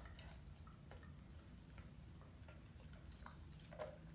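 Near silence: a low room hum with faint, irregular small clicks scattered through it.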